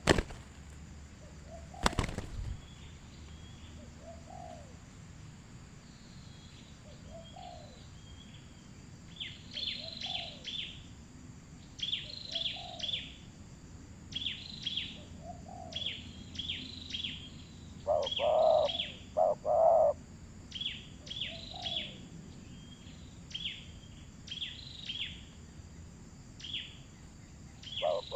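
Birds calling: a short low note repeats about every two seconds, with a louder double call near the middle. From about nine seconds in, clusters of three or four quick high chirps join it. A single sharp click comes about two seconds in.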